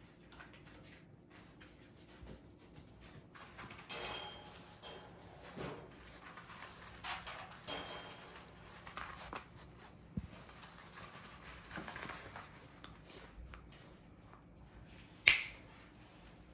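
Puppies moving about on artificial turf: scattered soft rustles and taps. There is a short metallic jingle about 4 seconds in and again about 8 seconds in, and a single sharp knock near the end is the loudest sound.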